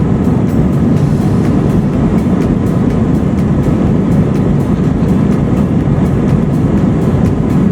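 Steady, loud airliner cabin noise: the jet engines and airflow rumble evenly, with faint ticks at an even spacing.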